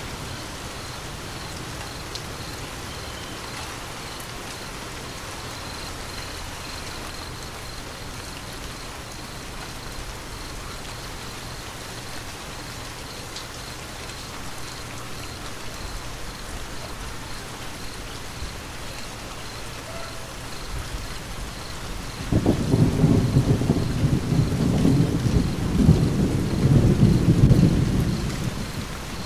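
Steady rain falling, joined about three-quarters of the way through by a loud, low rumble of thunder that swells for several seconds and then fades near the end.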